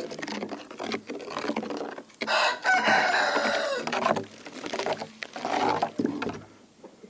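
A rooster crowing, a long call followed by a shorter one, with chickens clucking.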